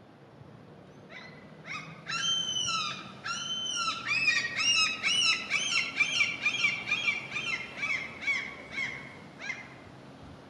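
Common gull (Larus canus) giving its long call. After a short note or two come two drawn-out high calls, then a rapid run of shorter notes, about three a second, that slows and fades away near the end.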